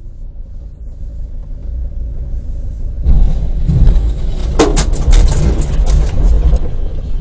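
Road vehicle rumble growing louder, then a sudden jump about three seconds in to a loud, harsh noise with a quick run of sharp cracks and knocks near the middle.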